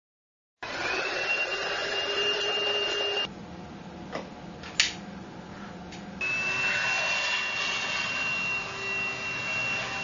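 TINTON LIFE VC812 cordless handheld cyclonic vacuum cleaner's motor starting about half a second in and running with a steady high whine. In the middle it runs quieter for about three seconds, with a couple of sharp clicks, then runs loud again.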